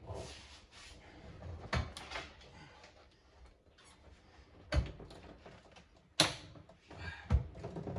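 Roll cage being worked into place inside a car's cabin: scattered clunks and knocks of the cage against the car's body, four of them louder than the rest, with shuffling and rubbing between.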